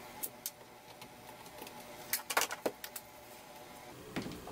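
A few light clicks and taps of a small steel screwdriver and tiny screws being set down on a cutting mat while the red plastic housing of a cordless impact driver is handled, over a faint steady hum. Two single clicks come near the start, and a quick cluster of taps a little past the middle.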